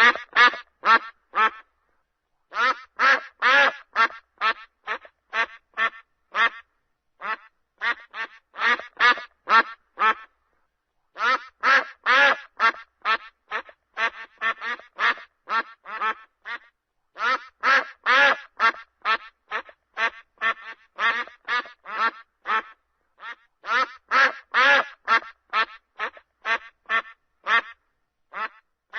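Ducks quacking over and over, several quacks a second, in bouts broken by short pauses.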